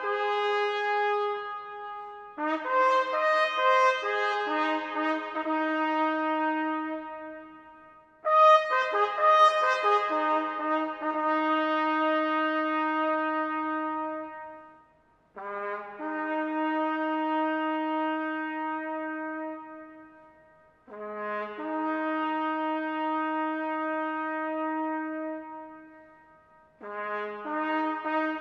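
A solo bugle call on a brass instrument: long sustained notes in slow phrases, each fading away before a short pause, several beginning with a brief lower note leading up to a held one.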